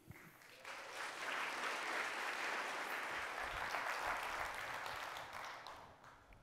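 Audience applauding, starting about half a second in, holding steady, and dying away near the end.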